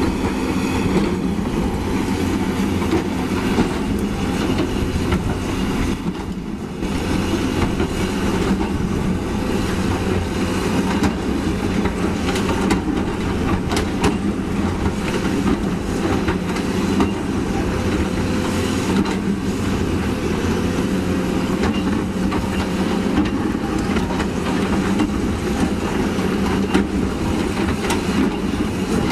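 Caterpillar 320D excavator's diesel engine running steadily as the machine travels on its steel tracks, the track links clattering over gravel.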